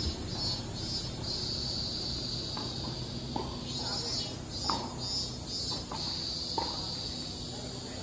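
Cicadas singing in a dense, high buzzing chorus that pulses in some stretches and holds steady in others. A few faint short chirps sound now and then behind it.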